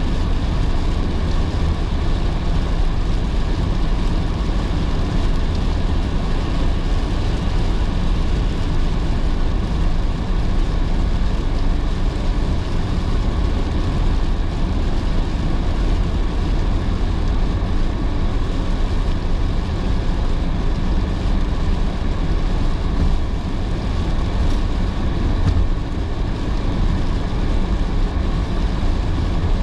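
Car driving on rain-soaked roads: a steady low rumble of road and engine noise with tyre hiss from the wet surface, unchanging throughout.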